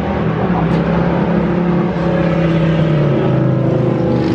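A motor vehicle's engine running, with its pitch dropping about three seconds in.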